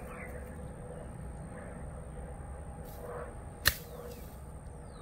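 A 9-iron striking a golf ball out of long grass: a single sharp click about three and a half seconds in.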